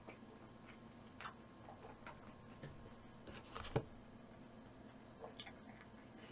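Quiet eating and handling noises: faint scattered ticks and small clicks, with one sharper click a little past halfway.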